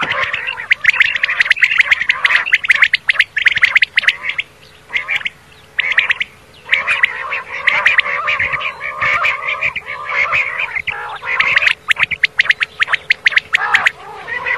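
Common quail calling: a fast, dense run of short clipped notes, with brief pauses about five and six seconds in and again near twelve seconds.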